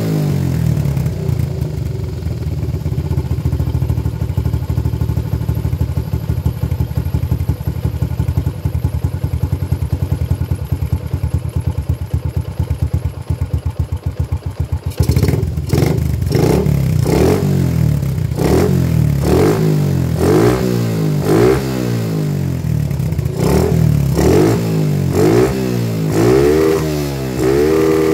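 Yamaha Jupiter MX's single-cylinder four-stroke engine idling steadily, then, about halfway through, revved in quick repeated throttle blips, rising and falling over and over. It is a test run after the carburettor was cleaned of water contamination, the suspected cause of the engine refusing to take throttle.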